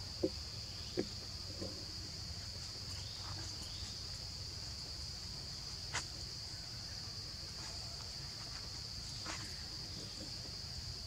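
Forest insects droning steadily at one high pitch, with a few scattered sharp clicks.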